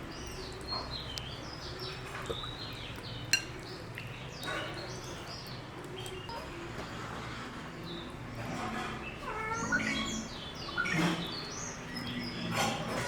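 Small birds chirping over and over, more busily in the second half, with a few sharp clinks of a utensil, the loudest about three seconds in.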